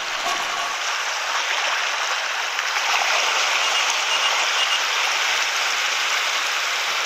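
Steady rushing water noise, even and unbroken.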